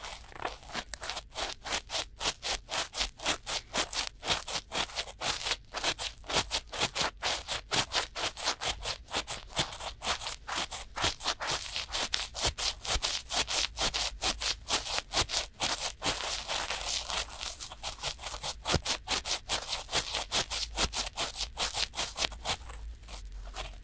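Cotton swabs rubbing inside both silicone ears of a binaural microphone at once, in quick repeated strokes, about four a second. The strokes turn softer near the end.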